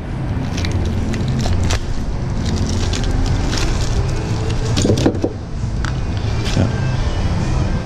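Metal tools clinking and knocking in an open steel tool-chest drawer as it is rummaged through: irregular sharp clicks, with a few louder clusters about two, three and a half and five seconds in, over a steady low hum.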